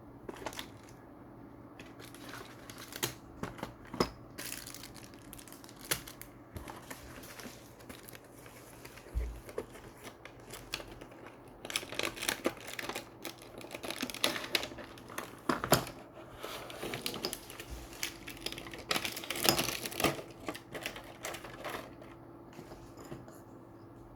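Irregular crinkling and sharp clicks of plastic packaging and a small plastic device being handled, busiest in the middle part, over a faint steady hum.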